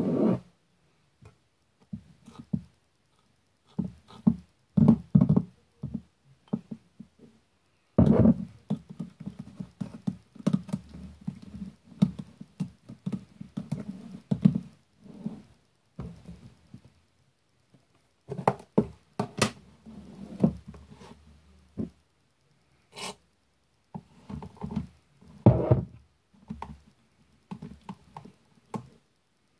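Hands working a slime: sticky squishes, pats and soft knocks in irregular bursts, with a few short pauses.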